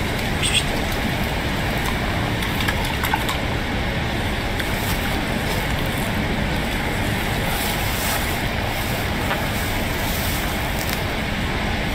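Steady rushing outdoor noise with no clear single event.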